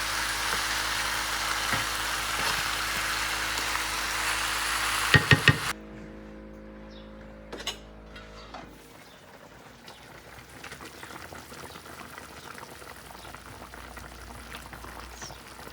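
Curry chicken wings sizzling loudly in a pot. About five seconds in come three quick knocks, then the sizzle cuts off abruptly and only faint clicks and light sizzling are left.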